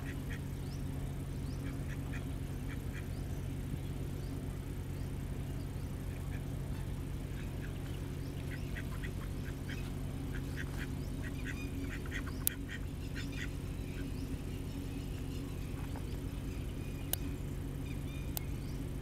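Ducks quacking softly in short runs of calls, busiest in the middle, over a steady low hum. A few sharp clicks in the second half.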